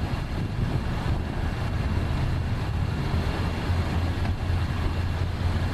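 2016 Buick Cascada's power soft top raising: a steady low hum from the roof mechanism.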